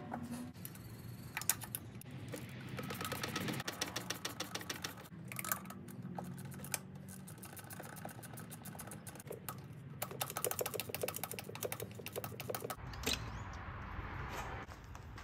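Ratchet wrench clicking in several quick runs, over a low steady hum, as the ignition coil pack is unbolted.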